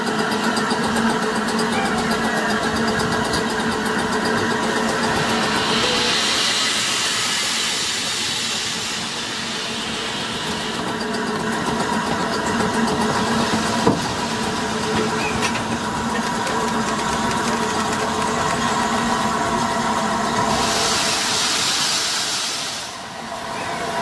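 LNER A3 steam locomotive Flying Scotsman moving slowly at a platform: a steady mechanical hum with two spells of steam hissing, one from about five to eleven seconds in and a shorter one near the end.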